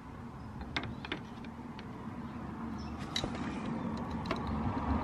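A few light, sharp metal clicks and taps as the motorcycle's gear shift lever is handled and fitted onto the shift shaft, over a low steady background noise.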